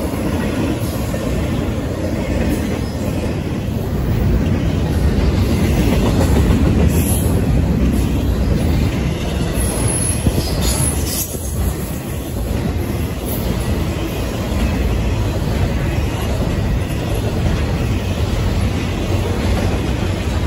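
Intermodal freight train cars rolling past close by: a steady rumble of steel wheels on the rails. Brief high-pitched wheel squeals come about a third of the way through and again near the middle.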